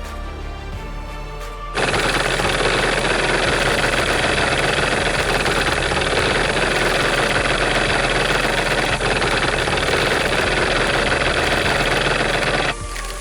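A chainsaw engine running flat out, a loud steady buzzing noise that cuts in suddenly about two seconds in and stops abruptly shortly before the end. Background music plays before and after it.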